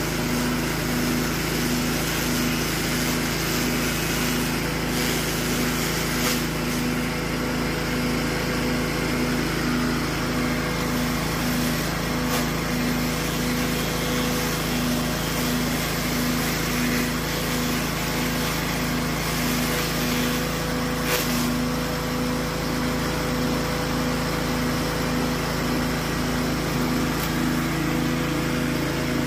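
Single-cylinder 6.5 HP Matrik petrol engine running steadily at working speed, driving a forage chopper's blades with a regular pulsing hum, as green grass stalks are fed in and chopped. A few brief crackles come now and then.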